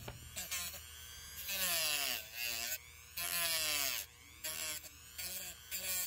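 Dremel rotary tool with a cut-off wheel cutting away plastic tabs on a plastic trim piece. Its whine dips and rises in pitch as the wheel bites into the plastic and is eased off, with two longer, louder cuts in the first half and shorter touches after.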